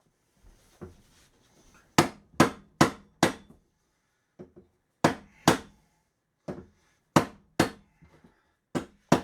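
Mallet blows on an old office chair, knocking at its middle arm bar to break it off: sharp strikes in quick runs, four in a row about two seconds in, two more about five seconds in, then lighter, more scattered ones.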